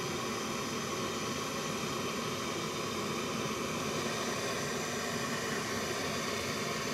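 Handheld gas torch burning with a steady hiss, its flame heating a copper pipe coupling to sweat-solder the joint.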